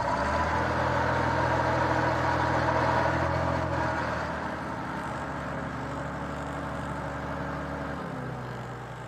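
A hydraulic crane's engine and pump running steadily under load while it hoists a man. The hum eases off about halfway through, and its deepest part drops out near the end.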